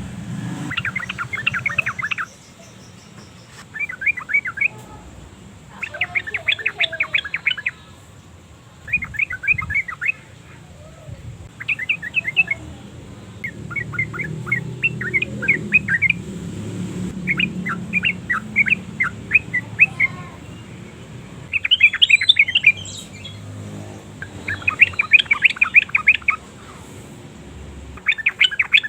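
Yellow-vented bulbul singing in bouts of rapid chattering notes, about a dozen phrases each a second or two long with short pauses between, over a faint low hum.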